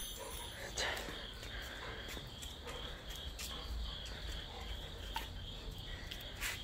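Faint, steady chirring of crickets, with a few light clicks scattered through it.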